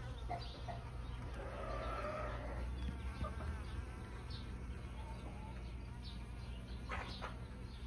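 Honey bees buzzing in a steady low hum, with a few short higher sounds over it, the clearest about seven seconds in.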